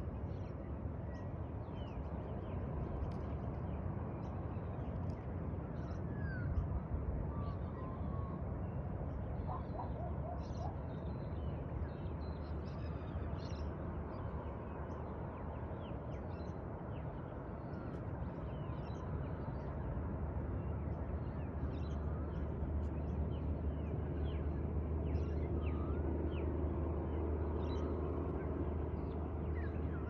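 Many birds chirping and calling at dusk, with short high chirps scattered throughout and a brief cluster of lower calls about ten seconds in, over a steady low rumble that grows slightly louder in the second half.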